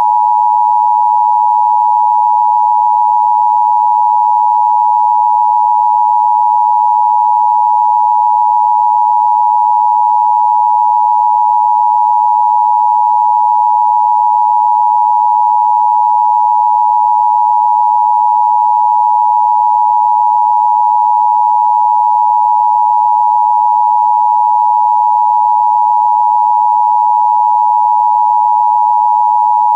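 Emergency Broadcast System attention signal: a loud, steady two-tone alarm beep held without a break.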